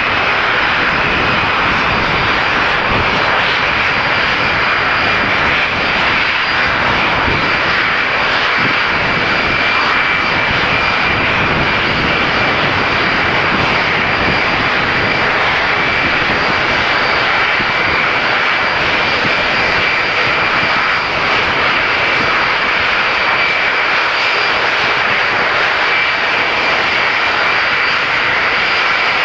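Lockheed TriStar's Rolls-Royce RB211 turbofans at taxi power: a loud, steady high whine over the rushing noise of the engines, unbroken throughout.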